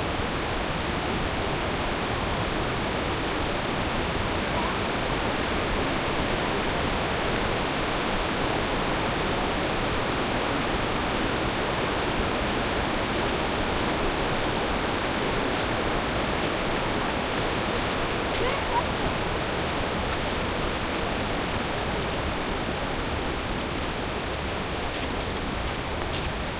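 Steady rush of a waterfall: continuous roaring water noise at an even level.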